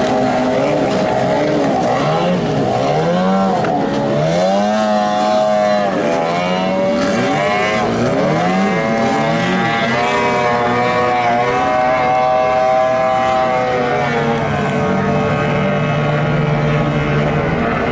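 Several racing boat engines running at high revs, their pitches rising and falling and overlapping as the boats speed past and turn.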